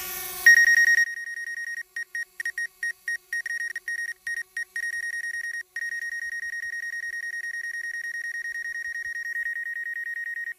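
A high electronic beep that starts about half a second in. It breaks into short, uneven pulses for a few seconds, then holds as one steady note. A small drone's propeller hum is heard briefly at the start and cuts off about a second in.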